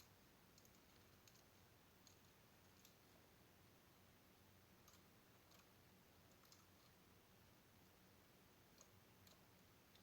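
Slime being pressed, giving faint, irregularly spaced clicks and pops, about ten over the stretch, over a low hiss.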